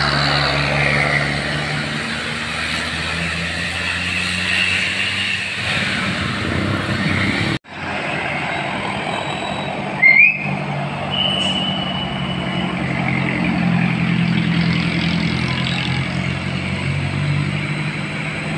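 Bus engine running amid road traffic, its low note rising and falling. The sound drops out for an instant about seven and a half seconds in; a few seconds later a brief high rising tone is followed by a steady high tone lasting about a second and a half.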